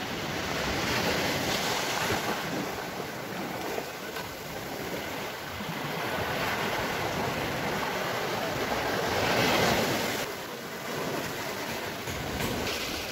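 Small waves washing onto a sandy beach in a steady hiss, swelling as each one breaks, most strongly about nine or ten seconds in, with wind across the microphone.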